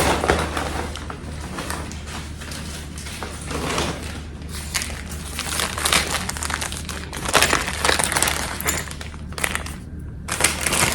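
Plastic packaging crinkling and rustling as it is handled and opened, with irregular crackles throughout over a steady low hum.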